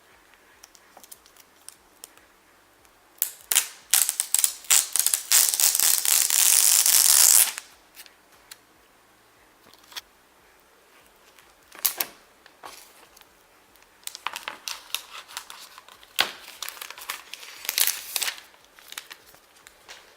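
Plastic protective wrap being pulled off a new iPad by its pull tab: crinkling and clicking handling, then one long, loud tearing peel a few seconds in, and more crinkling near the end.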